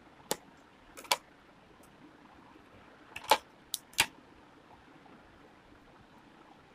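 About six sharp clicks and taps in the first four seconds from hands at work with loose seed beads and cord on a table; the loudest come about a second in and around three to four seconds in.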